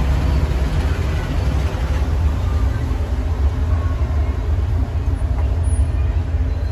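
Steady low rumble of street traffic, with faint voices in the background.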